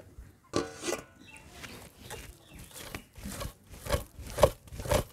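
A hen clucking a few times. Near the end, ripe palm-fruit pulp is rubbed in strokes about half a second apart over a net stretched on a wooden slatted frame.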